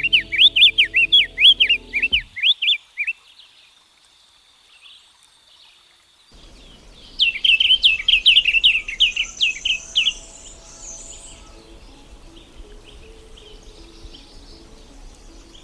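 Diademed tanager singing: two phrases of rapid, sweeping whistled notes, the first lasting about three seconds, the second starting about seven seconds in and lasting about three seconds. Fainter, higher calls follow.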